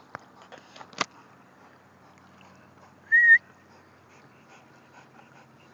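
A few sharp clicks and a knock in the first second. A little after three seconds in comes one short high-pitched call, the loudest sound here, with a slight wobble in pitch.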